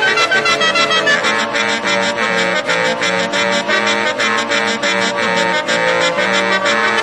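A set of tuned truck air horns on a 1935 Citroën truck playing a lively tune in brassy chords. Short, quick notes come about four a second over held lower notes.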